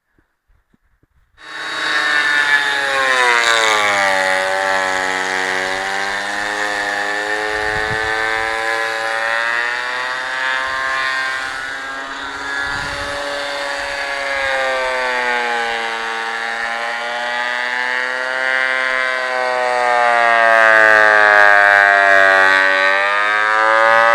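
Ridgid thickness planer switching on about a second in and running with a loud, whining motor and cutterhead. The pitch sags and recovers twice as a rough oak plank feeds through under load. It drops away right at the end.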